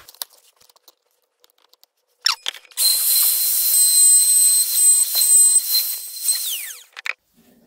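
Compact hand router starting up about two seconds in and running with a steady high whine while cutting a rabbet along the edge of a softwood board. It is switched off near the end, the whine falling as the bit spins down.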